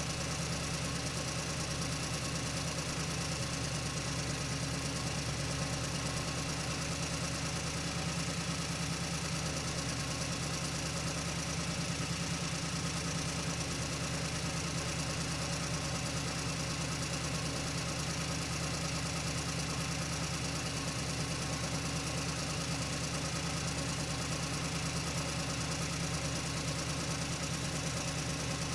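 A steady engine-like drone, idling evenly with a low hum and no change in speed.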